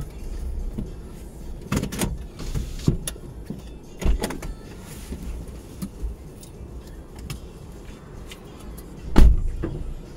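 Low rumble heard inside a car's cabin, with several short knocks and thumps; the loudest thump comes about nine seconds in.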